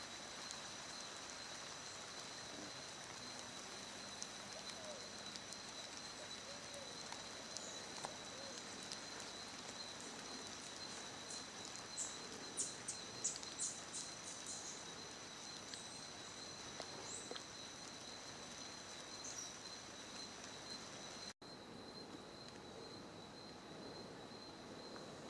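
Tropical rainforest ambience: a steady high-pitched insect drone and, near the middle, a bird giving a quick series of short high chirps. The sound drops out for an instant about three-quarters through.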